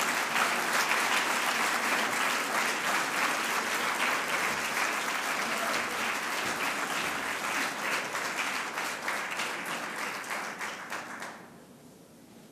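Audience applauding, many hands clapping together at a steady level, then dying away about eleven seconds in.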